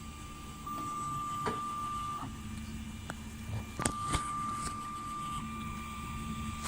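3D printer at work: a steady high motor whine that stops and restarts several times, over a low steady hum, with a few sharp clicks about a second and a half in and around four seconds.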